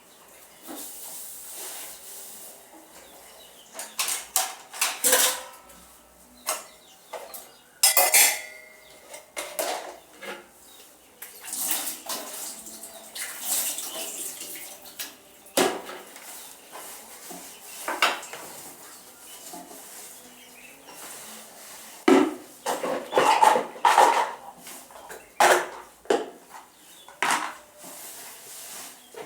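Metal dishes, pots and cutlery clinking and clattering against one another as they are handled and washed, in irregular knocks, some of them ringing briefly.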